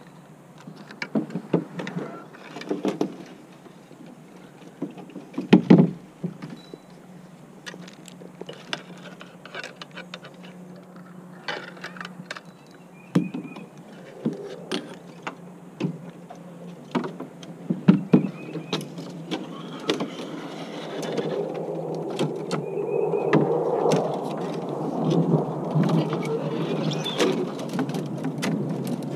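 Canoe being paddled into thick shoreline brush: irregular knocks of the paddle and gear against the hull, with branches and twigs scraping and rustling along the canoe, growing louder in the last third.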